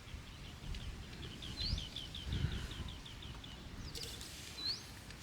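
Birds calling: a fast run of short high chirps, about five a second, for the first three seconds, with single rising whistled notes about a second and a half in and near the end. Faint low handling rumble underneath.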